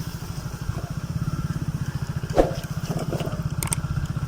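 Motorcycle engine running steadily at low speed, with a fast, even putter. A single short knock about halfway through.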